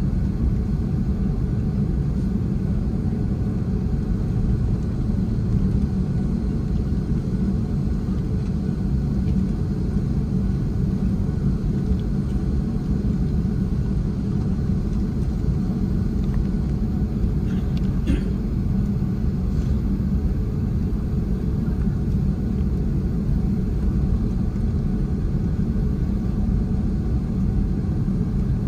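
Steady low rumble inside the cabin of an Airbus A330-300 taxiing before takeoff, its Pratt & Whitney PW4000 engines at low power.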